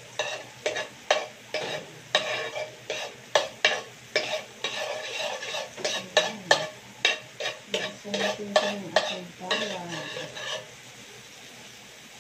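Spoon scraping and knocking against a frying pan about twice a second while garlic sautés in melted margarine with a faint sizzle. The stirring stops near the end, leaving only the sizzle.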